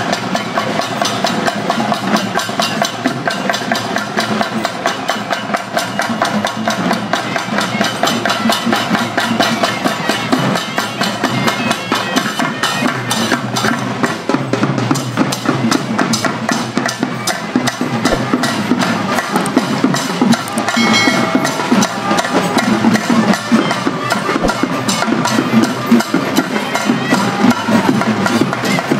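Drums and other percussion beaten in a fast, dense, steady rhythm.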